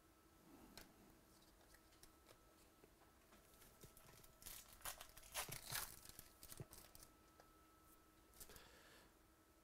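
Faint crinkling and tearing of trading card packs and cards being handled, bunched about halfway through, over a faint steady hum.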